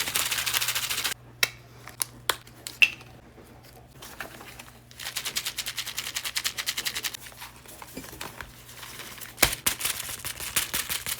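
Many googly eyes rattling as a paper bag book covered in them is shaken: a fast clatter of tiny plastic pupils. It comes in bursts near the start, from about five seconds in, and near the end, with a few single clicks between.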